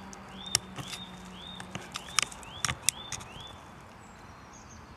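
Small sharp clicks and knocks as a gloved hand works the rubber fuel line off a chainsaw carburettor. A bird chirps over it, short repeated calls about twice a second for the first three seconds or so.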